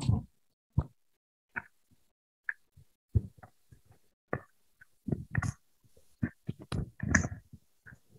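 A microphone being handled and adjusted close to the body: irregular knocks, bumps and rustles, loudest near the middle and about two thirds of the way through.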